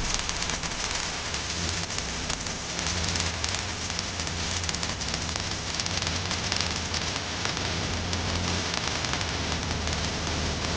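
Stick (SMAW) welding arc crackling steadily, an even frying sizzle with a low electrical hum underneath.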